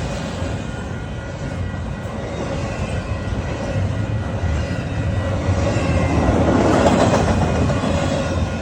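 A train rolling past, with the steady noise of its wheels running on the rails.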